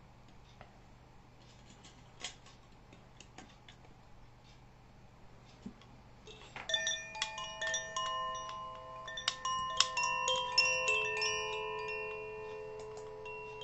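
Hand-held bamboo-tube chime ringing: clear, sustained tones at several pitches struck at random and overlapping as they fade. It starts about six and a half seconds in, after a few faint clicks.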